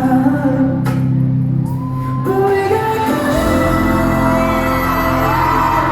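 Live pop song played through a concert hall's sound system, with singing and shouts from the audience. The bass comes in heavier about three seconds in.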